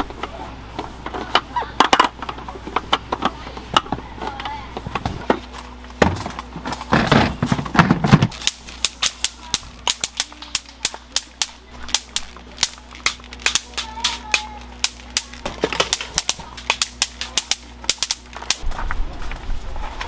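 Rapid, irregular sharp clicks and clacks of objects being handled as a camp table is cleared, several a second from about halfway through until near the end, over a steady low hum.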